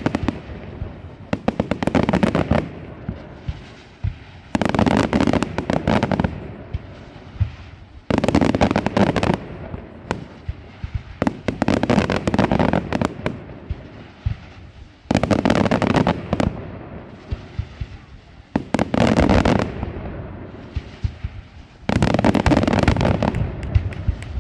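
Aerial fireworks display: rapid volleys of bangs and crackling, each lasting about two seconds and coming about every three and a half seconds, with quieter rumbling echoes between them.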